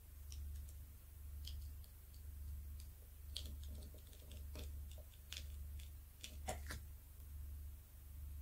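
Faint, irregular light clicks and taps of a diamond painting pen pressing small plastic drills onto the canvas, busiest in the middle, over a low hum that swells about once a second.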